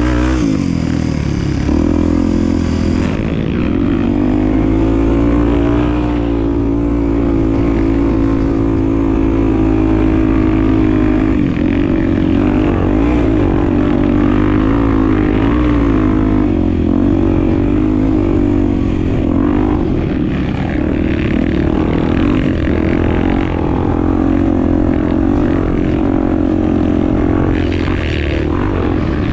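Honda Tornado 250 single-cylinder four-stroke trail bike engine running under load while riding, its pitch rising and falling as the throttle is worked.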